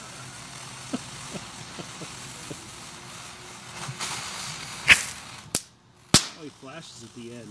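TNT Sir Dumps A Lot novelty fountain firework hissing as it sprays sparks, with a few small pops. Near the end come three sharp, loud cracks, about half a second apart.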